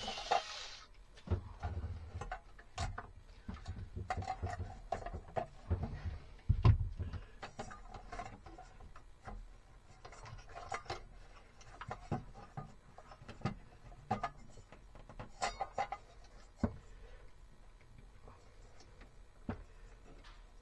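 Light fixture being worked loose and unscrewed from the cabin overhead by hand: scattered small clicks, taps and rubbing of tools and the fixture, with one louder knock about six and a half seconds in. A bit of music cuts off just at the start.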